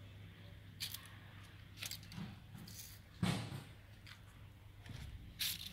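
A steady low hum with a few short, sharp clicks or knocks at irregular intervals, the loudest about three seconds in.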